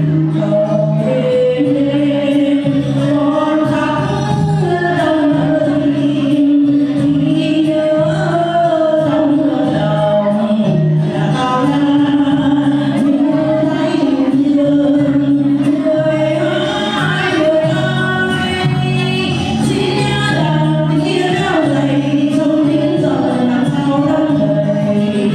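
Voices singing a song over instrumental accompaniment, with a steady low bass line under the melody.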